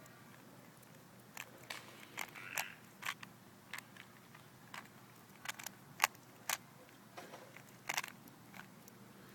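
Rubik's cube being turned by hand during a solve: irregular, sharp plastic clicks and clacks, the loudest about six seconds in.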